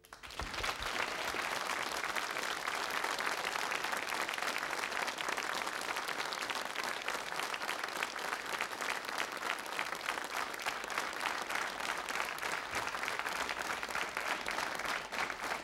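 Audience applauding; the clapping breaks out suddenly at the start and then holds steady.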